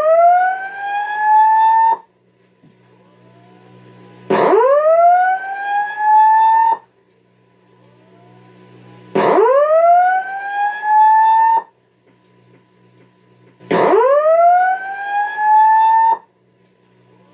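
Simplex voice-evac fire alarm speaker (a 9219) sounding the slow whoop tone: four rising sweeps, each climbing steeply and then levelling off over about two and a half seconds, repeating about every five seconds with a pause between. A faint steady high tone runs underneath.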